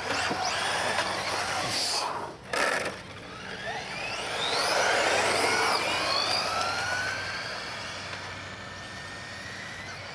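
Electric radio-controlled cars running on asphalt, their motors whining. About three seconds in, several whines climb in pitch as the cars speed up, then settle into a steadier, fainter whine near the end.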